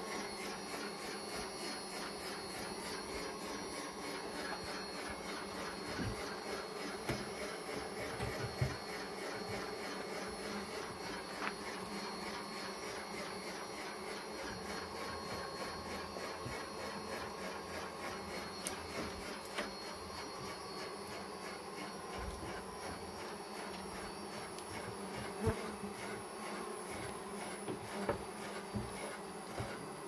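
Honeybees buzzing steadily around opened honeycomb frames, with a few light knocks and scrapes from a hand uncapping fork working the comb.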